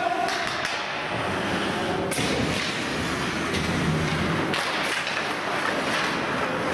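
Hockey game sounds in an echoing hall: several sharp stick hits and thuds over a steady din of play.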